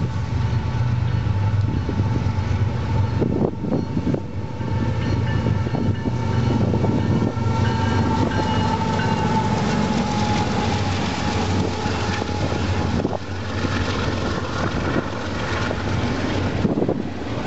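A Union Pacific freight train's diesel locomotives run loudly as they approach and pass, with a deep engine rumble and a steady high whine that drops slightly in pitch as they go by. The double-stack container cars then roll past with wheel clatter.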